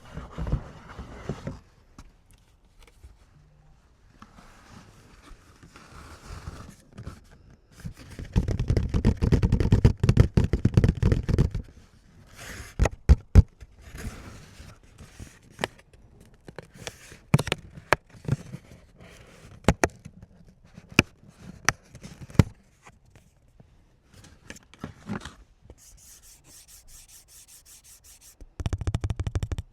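Card packaging being torn open and cards handled: crinkling, tearing and rubbing, loudest for a few seconds in the first half, then a run of short sharp clicks and taps.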